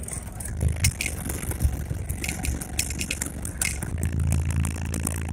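Car subwoofers playing deep, pulsing bass from a hip-hop track, heard from outside the car. A long held low note comes in about four seconds in. Sharp rattling clicks from the car body and roof rack shaking run over the bass.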